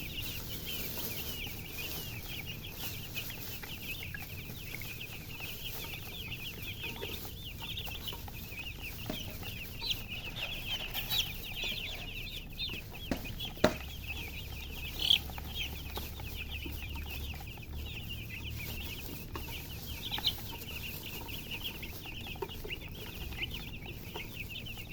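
Many baby chicks peeping continuously in a dense, high-pitched chorus of short cheeps. A few sharp knocks stand out about halfway through.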